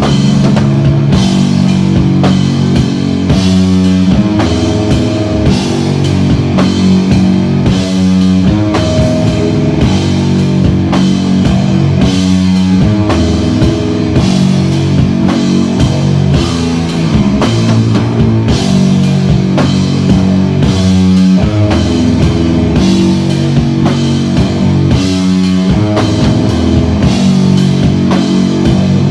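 Rock band playing live: electric guitar and drum kit working through a riff that repeats about every four seconds, with steady drum and cymbal hits and no singing.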